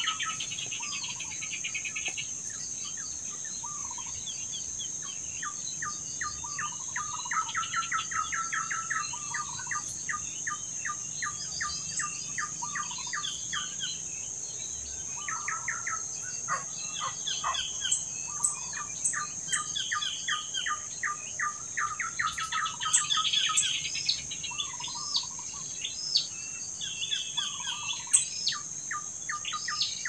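Small birds calling, with rapid runs of short chirps repeated several times a second, over a steady high insect buzz.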